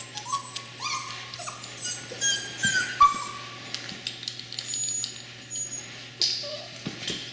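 Border collie puppies, seven weeks old, whining and squealing: a string of short, high cries that mostly fall in pitch, several overlapping, from nervous pups.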